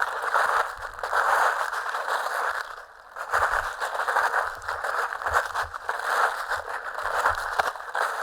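Footsteps crunching through dry fallen autumn leaves at a walking pace, each step a dense crackling swell, with a short lull about three seconds in.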